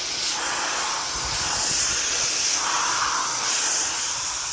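Pressure washer spraying a steady high-pressure water jet, heard as a continuous hiss.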